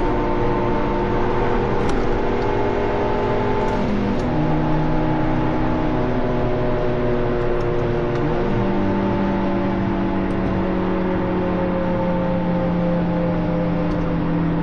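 2017 Subaru Impreza's flat-four engine running through a full muffler-delete exhaust, heard inside the cabin over road noise. The engine note holds steady, drops in pitch about four seconds in, and rises again about eight seconds in.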